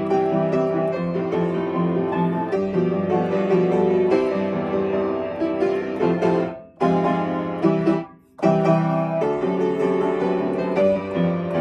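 Upright piano played by hand, a melody over chords, with two short breaks in the sound about seven and eight seconds in.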